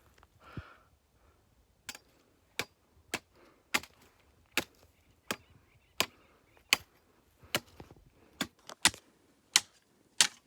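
A run of sharp knocks, like chopping strikes on wood, about one every two-thirds of a second. There are roughly fourteen in all, with three coming in quick succession near the end.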